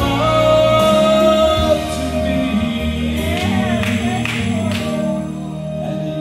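Gospel song sung by a man into a handheld microphone over instrumental accompaniment. He holds one long note at the start, then the melody moves on.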